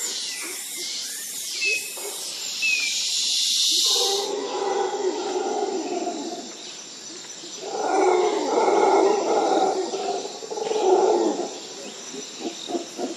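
Wild animal calls. A high hissing drone fills the first four seconds. Then come drawn-out calls, two loud bouts in the middle, and quick repeated calls about three a second near the end.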